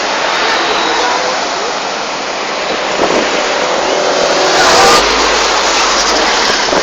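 Road traffic: engine and tyre noise of vehicles passing close by, swelling to its loudest about two-thirds of the way through.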